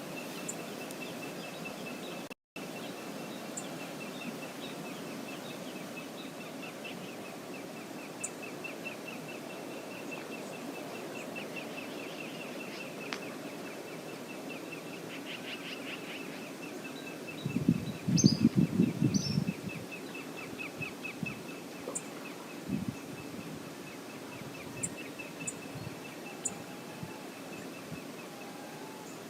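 Steady rushing of a river outdoors, with a fast, high, repeating chirp running through most of it and a few faint high clicks. About eighteen seconds in, a loud burst of low thumping lasts about two seconds, with a smaller one some five seconds later.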